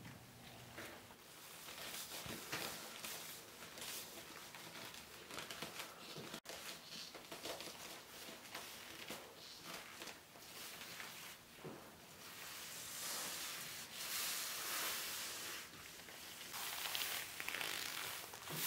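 Thin unlined leather gloves rubbing over a leather cap and bare skin: faint, scattered rustling of leather, fuller in the last several seconds.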